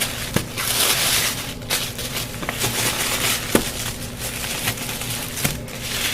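Wrapping paper rustling and crinkling as it is unwrapped by hand from a package, with scattered small clicks and two louder rustles, about a second in and near the end.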